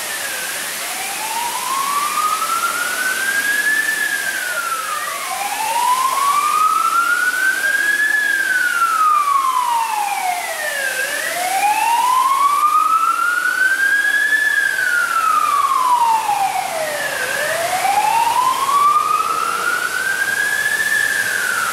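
Emergency vehicle siren in a slow wail, its pitch rising over about three seconds and falling again, repeating steadily about every six seconds over a steady hum of city traffic.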